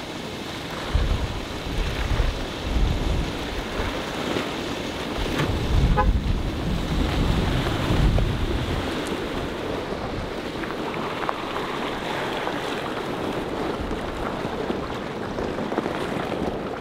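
Water rushing out of a fish-stocking pipe and churning into a lake as hatchery rainbow trout are flushed in, with gusts of wind buffeting the microphone through the first half.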